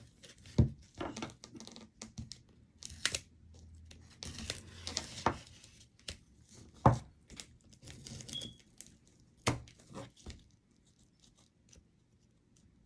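Packaging being torn, crinkled and pried at by hand to get a tightly sealed package open, with irregular rustles and several sharp snaps.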